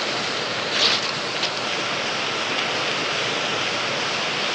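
Steady, even din of textile mill machinery running, with a brief sharper rustle about a second in.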